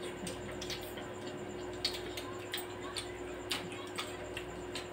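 Close eating sounds of people chewing fried chicken and rice and smacking their lips: soft, irregular clicks several times a second, over a steady low hum.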